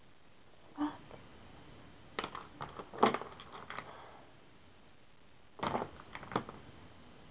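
Scattered sharp clicks and light knocks in three clusters, the loudest about three seconds in.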